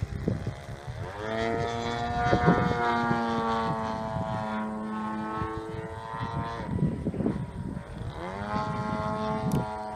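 One-third-scale Laser 200 model aerobatic plane flying overhead, its propeller engine running steadily. The engine note climbs about a second in, falls away near seven seconds and climbs again a second or so later as the plane works through its loop.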